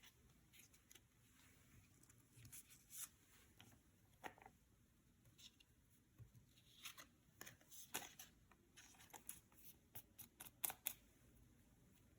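Faint, irregular crisp clicks and short rustles of Yu-Gi-Oh trading cards and their packaging being handled, coming more densely in the second half.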